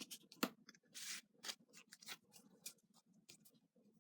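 Tarot cards being handled: faint scattered clicks and snaps, with a short sliding rustle about a second in.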